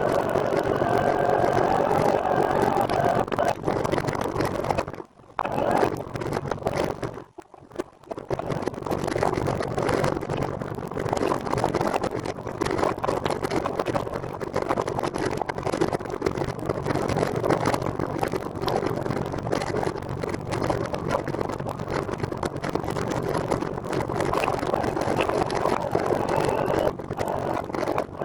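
Steady road and vehicle noise, with the sound dropping out briefly twice, about five and seven and a half seconds in.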